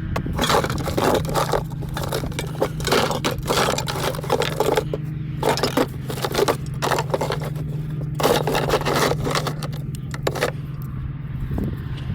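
Repeated irregular scraping strokes, each about half a second long, over a steady low machine hum.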